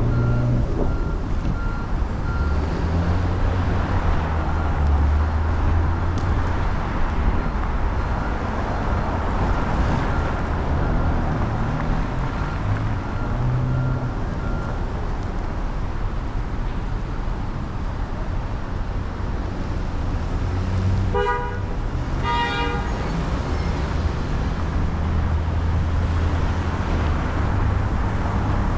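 Steady traffic and tyre noise on wet city streets, with a low engine hum, heard from a car driving. About three-quarters of the way through, a car horn gives two short honks.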